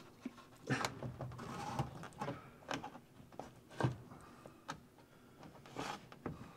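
Irregular knocks and clicks with faint rustling, about half a dozen in all, the loudest about a second in and just before four seconds in: the handling noises of a person working and moving about inside a truck cab.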